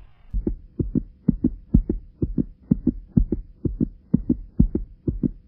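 Heartbeat sound effect: a quick, steady lub-dub of paired thumps, about two beats a second, starting about half a second in, over a faint steady hum.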